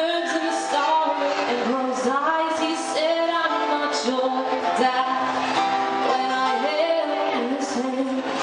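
A woman singing into a microphone while playing an acoustic guitar.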